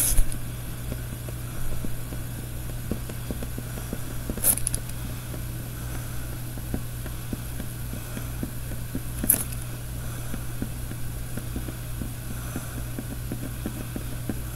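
Pen scratching on paper in short strokes, over a steady low hum, with two brief swishes about a third and two-thirds of the way through.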